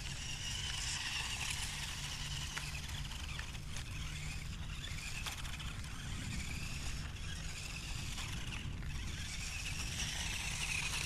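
Small electric motor and gearbox of a 1:18 RC crawler whining as it drives, the pitch rising and falling several times with the throttle, over a low rumble of wind on the microphone and a few small clicks.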